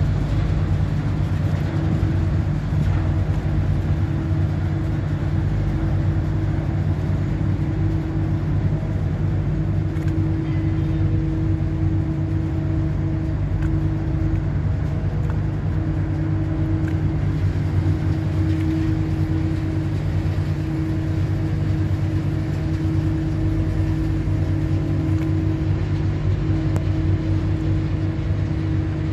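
A wellboat's diesel engines and propulsion running steadily at close range as the ship manoeuvres off the berth: a deep, even drone with a steady hum above it that fades in and out.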